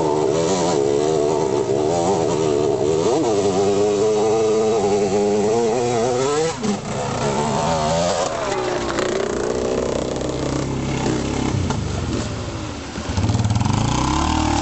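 Dirt bike engines revving unevenly under load as the bikes push through water, their pitch rising and falling. About a second before the end a louder, deeper engine sound comes in.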